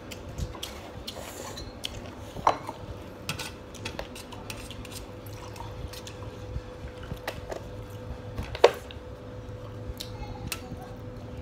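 Stainless steel tableware clinking, with a sharp ringing clink about two seconds in and a louder one about eight and a half seconds in. Water is poured from a plastic bottle into a metal cup in between.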